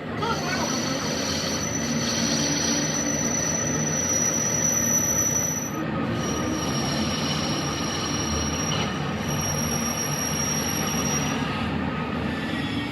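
A power tool working on steel: a steady high-pitched squeal over a rough metallic grinding noise. The squeal breaks off briefly about six seconds in, resumes slightly lower, and fades near the end.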